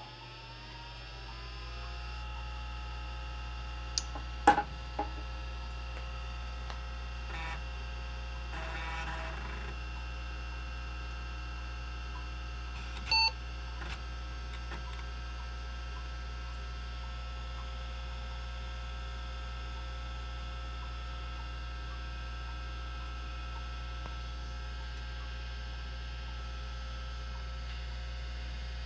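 MiniScribe 6053 MFM hard drive finishing its spin-up at power-on: a whine rising in pitch over the first two seconds, then a steady whirr over a constant low hum. A few sharp clicks come about four to five seconds in, a brief rasp near nine seconds, and a single short beep about thirteen seconds in, the IBM AT's power-on self-test beep.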